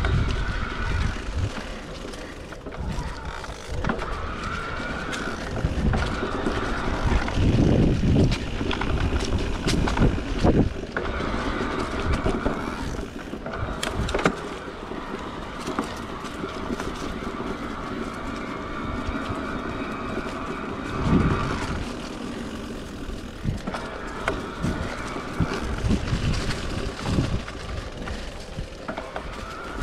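Niner RIP E9 electric mountain bike ridden along a dirt trail: the mid-drive motor whines steadily, dropping out and returning several times, over tyre and wind rumble. Sharp knocks and rattles from the bike hitting bumps come through, the loudest a little after ten seconds, near fourteen and about twenty-one seconds in.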